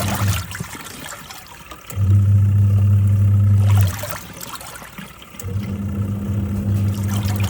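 Twin-tub washing machine washing a load: the wash motor hums in runs of about two seconds, with pauses of about a second and a half between them as the pulsator reverses, while the water churns and sloshes.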